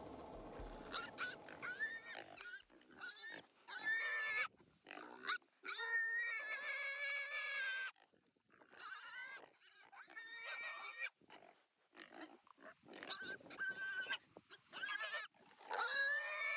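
An animal squealing over and over, in bursts a second or two long with short gaps between them.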